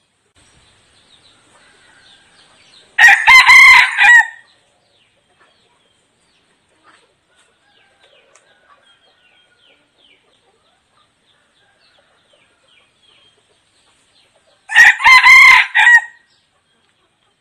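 Red junglefowl rooster, a decoy call bird, crowing twice about twelve seconds apart: a short, clipped crow of a few broken notes, about a second and a half long, about three seconds in and again near the end. Faint high chirps come in between the crows.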